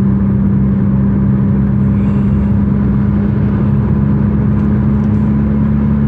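Car driving at a steady speed: an even, constant drone of engine and road noise.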